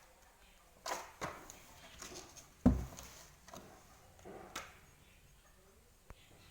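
Kitten's paws tapping and scuffling as it pounces and bats at a lizard, a few scattered taps with one louder thump about two and a half seconds in.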